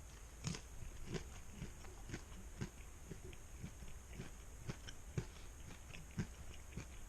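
A person chewing a chicken wing close to the microphone, soft mouth clicks coming about twice a second.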